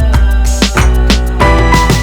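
Background music with a steady beat: drums, bass and melodic keyboard notes.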